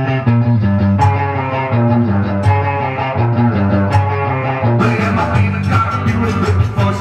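A rock and roll record playing: guitar-led, with a walking bass line and a steady beat. The band comes in fuller about five seconds in.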